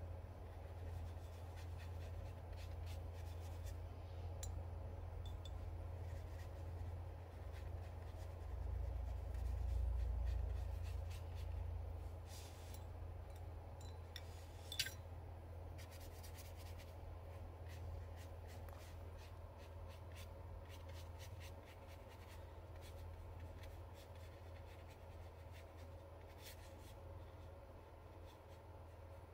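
Paintbrush strokes and dabs scratching lightly on paper, faint and irregular, over a steady low hum. One sharp click about fifteen seconds in.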